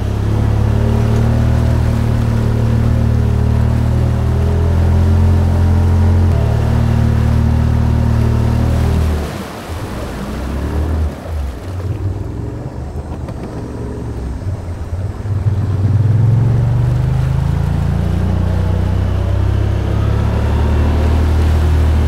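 Honda Pioneer side-by-side's engine running steadily under load while pushing through deep floodwater, with water rushing and splashing around the vehicle. About nine seconds in the engine note falls away for several seconds, then climbs again and holds steady.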